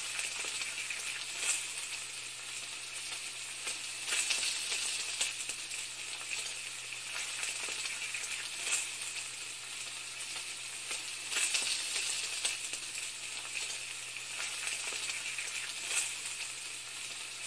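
Food sizzling in a hot pan: a steady frying hiss with fine crackling and a few louder pops.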